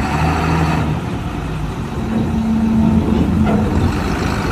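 Coach bus's diesel engine running at low speed as the bus creeps onto a ferry's steel deck. The engine note steps up a little about two seconds in.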